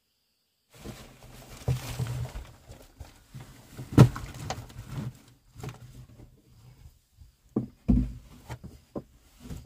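Rustling of clothing and a canvas backpack, with knocks and thumps on wooden boards as the backpack is set down on a wooden ledge in a small dug-out earthen room. The loudest thump comes about four seconds in, and another hard thump comes near the end.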